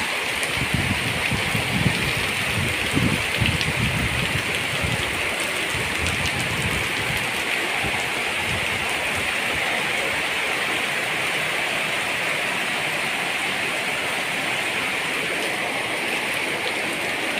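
Heavy rain pouring down in a steady, dense hiss, with uneven low rumbling through the first several seconds.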